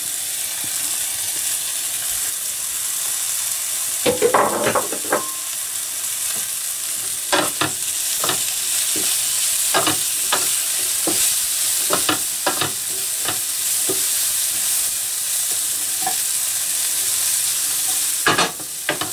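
Diced bacon, onion, dried tomatoes and chopped gherkins sizzling in a frying pan with a steady hiss. From about four seconds in, a wooden spatula scrapes and knocks against the pan in repeated stirring strokes.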